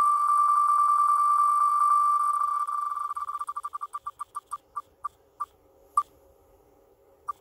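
Wheel of Names website's spinning-wheel tick sound. The ticks come so fast at first that they blur into one steady high tone, then break into separate ticks that come further and further apart as the wheel coasts to a stop, the last one near the end.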